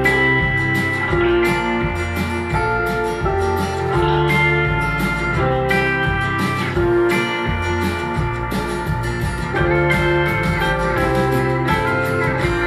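Acoustic folk music, plucked guitar over a bass line, played through a pair of Sharp CP-C411H mini-system speakers and picked up by a microphone in the room.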